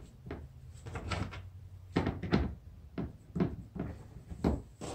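Short knocks and clatters of hardware being handled against a plastic kayak hull as screws are set by hand through a mounting plate, about eight of them at uneven intervals.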